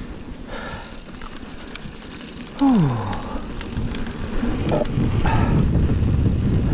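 Mountain bike riding fast down a dirt trail: tyre rumble and wind on the microphone, getting louder from about four seconds in, with scattered sharp clicks and rattles from the bike. About two and a half seconds in, a short tone drops steeply in pitch and is the loudest sound.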